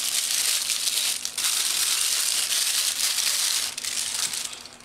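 Packaging crinkling and rustling continuously as a camera kit lens is unwrapped, dying away near the end.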